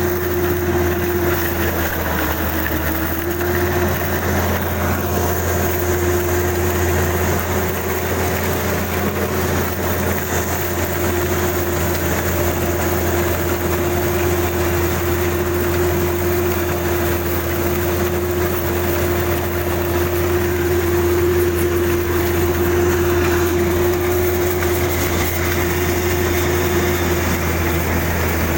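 Kubota DC-35 combine harvester's diesel engine running steadily, with a constant whine over a low drone.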